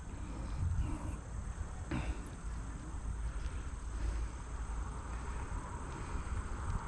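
Wind rumbling over the microphone, with a faint steady high-pitched hiss above it and one soft click about two seconds in.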